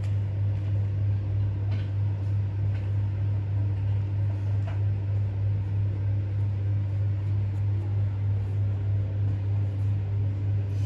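A steady low hum with no change in level, with a few faint light ticks over it.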